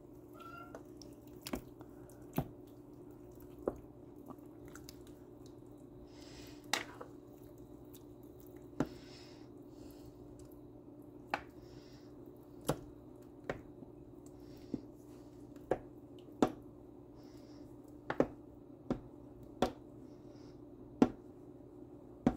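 Sharp clicks and knocks at irregular intervals, about one every second or two, as a plastic spoon knocks against the stoneware crock of a slow cooker while the contents are stirred, over a low steady hum.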